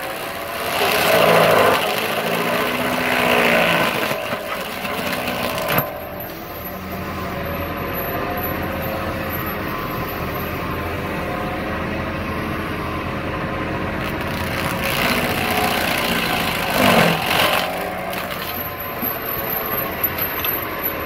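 Excavator-mounted Seppi MIDI-KASTOR hyd hydraulic stump grinder cutting into a tree stump, over the steady running of the excavator's diesel engine. The grinding swells louder and the pitch sags and recovers briefly about a second in and again near the end, as the cutter is pressed harder into the wood.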